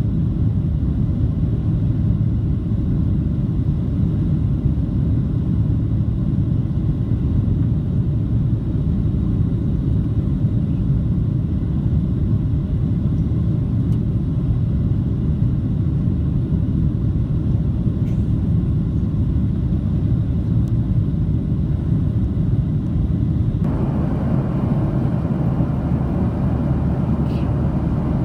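Steady low rumble of a Boeing 737-700 in flight, engine and airflow noise heard inside the cabin. Near the end a brighter hiss comes in over the rumble and stays.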